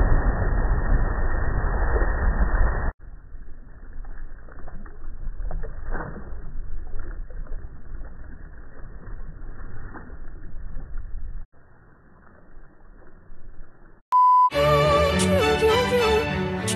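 Muffled rushing noise of a body splashing into lake water, cut off sharply about three seconds in, then quieter water sounds with a few faint splashes. Near the end a short steady beep, then music with a clear tune starts.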